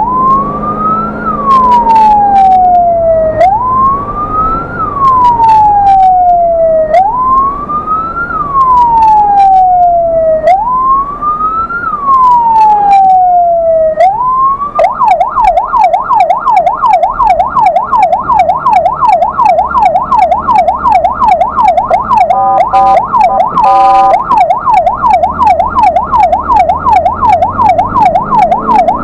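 Ambulance electronic siren, loud. For the first half it sounds a slow wail that rises and falls about every three and a half seconds. About halfway through it switches to a fast yelp, sweeping up and down about three times a second, with a brief change to a different stepped tone near the end before the yelp resumes.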